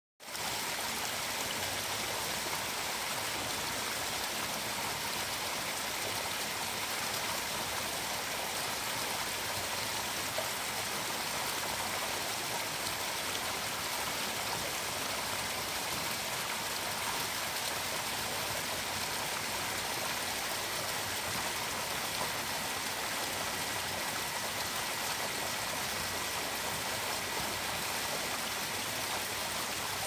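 Steady, unchanging rush of running water flowing through a fish-farm trout pond.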